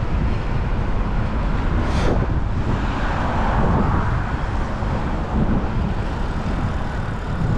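Wind rumbling on the microphone of a moving bike while road traffic passes on a wet road; a vehicle swishes past about three to four seconds in, and there is a brief click about two seconds in.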